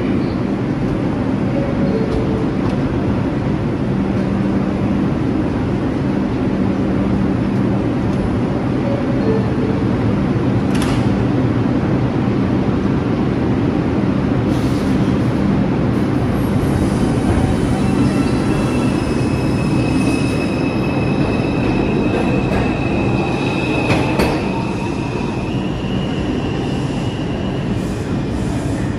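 New York City subway train pulling out of the station: a steady rumble of wheels on rail with a low motor hum. It is broken by a couple of sharp clacks, and a high wheel squeal rises in the second half.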